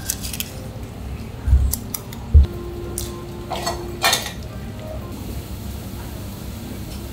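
A spoon scraping and clinking against a small plastic tub and ceramic bowls as a nut-and-seed topping is spooned out, a few sharp clicks scattered through, with two dull knocks about a second and a half and two and a half seconds in.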